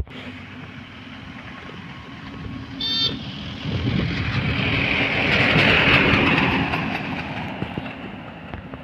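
A road vehicle passing close by: its rush of engine and tyre noise swells to a peak about six seconds in and fades away, over a steady engine hum. A short horn toot sounds about three seconds in.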